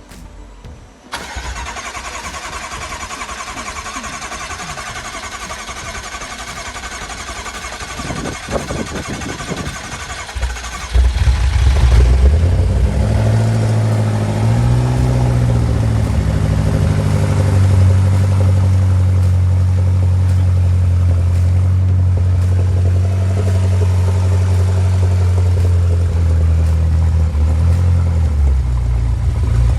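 2012 BMW M6's V8 engine being started after a rebuild: a steady whine for about ten seconds, then about eleven seconds in the engine fires with a loud low rumble, flares up briefly and settles into a steady idle.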